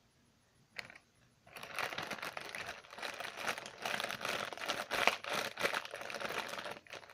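Sticky homemade slime being kneaded by hand: a dense run of wet crackling and clicking that starts about a second and a half in and stops just before the end, after a single click near the start.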